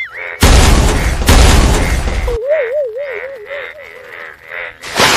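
Edited-in comedy sound effects over a faint pulsing tune. A loud crash of noise comes about half a second in and is hit again about a second later; then a wobbling cartoon-style tone plays, and near the end another loud rush of noise starts.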